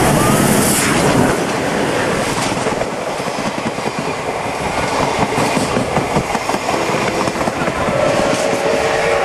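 D51 steam locomotive and its passenger coaches passing at very close range: a loud rumble with the clatter of steel wheels over the rail joints. A steady ringing tone joins about eight seconds in.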